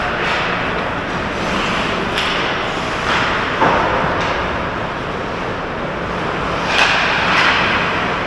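Ice hockey play in an indoor rink: a steady scrape and hiss of skates on the ice, with a few sharp knocks of sticks, puck and boards, about four in all.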